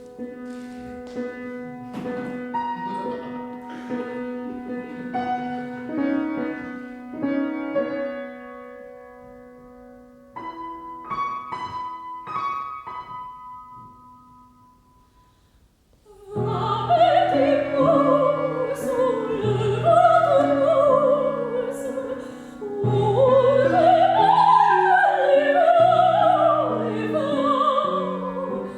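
Piano playing a sparse opening, its notes ringing and dying away to near quiet about fifteen seconds in. Then an operatic voice starts singing with wide vibrato over piano accompaniment.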